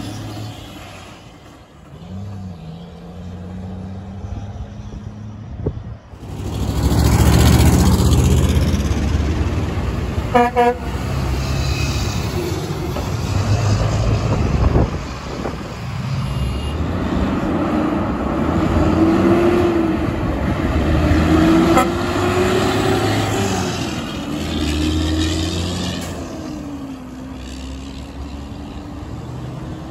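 Heavy trucks passing in traffic, engines running, and sounding their horns: a quick series of short toots about ten seconds in, and longer horn and engine notes rising and falling later on.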